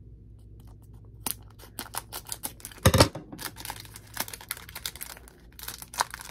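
Scissors snipping open the top of a foil Pokémon booster pack, in scattered short clicks, with a single louder thump about three seconds in and small crinkles of the cut wrapper being handled near the end.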